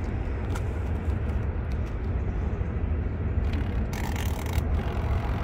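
Portable twin-tub washing machine running its spin cycle, a steady low mechanical hum, with a short scratchy rasp about four seconds in as the spin-timer knob is handled.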